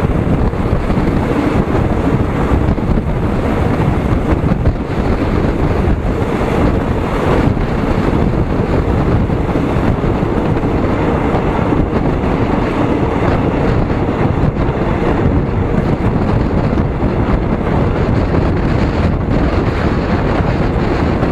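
Strong wind buffeting the microphone over the steady rumble of a moving vehicle, unbroken throughout.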